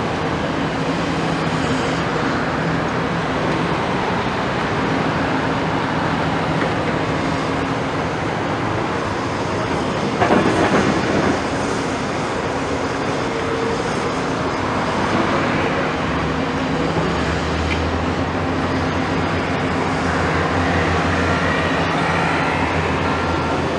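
Diesel engines and hydraulics of a CAT and a Doosan excavator working, a steady machine noise. A short louder clatter comes about ten seconds in, and a deeper engine note joins from about sixteen seconds.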